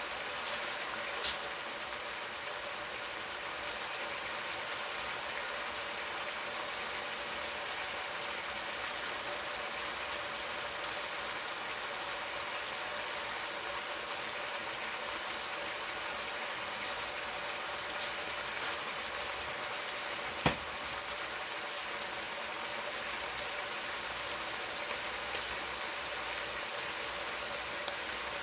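Steaks sizzling in a skillet, the pan juices bubbling, a steady hiss throughout. A few sharp clicks cut through it, the loudest about twenty seconds in.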